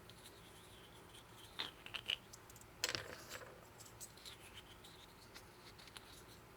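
Light plastic clicks and scrapes of loose keyboard keycaps being handled and rubbed between the fingers, a few scattered taps with a small cluster about three seconds in.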